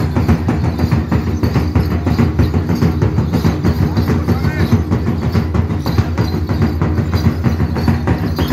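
Loud, fast folk percussion for a stick dance: drums beaten in a dense, steady rhythm, with the clacking of the dancers' sticks.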